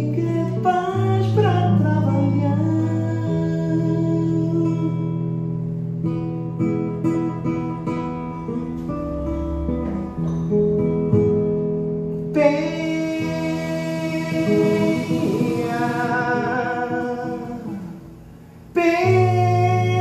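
Live acoustic guitar accompanying a man singing a baião, with long held notes. The music drops away briefly near the end, then guitar and voice come back in at full level.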